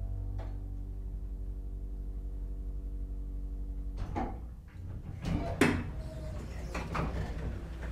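A 1982 KONE hydraulic elevator arriving at a floor. The steady hum of its hydraulic drive stops about four seconds in as the car comes to rest. Then the car's sliding doors open with a run of clicks and clacks, one loud clack a little after the middle.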